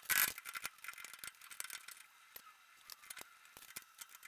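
Ratchet wrench clicking in quick runs as it backs out the bolts holding the rear drum-brake dust shield to the axle, with a short metallic clatter at the start.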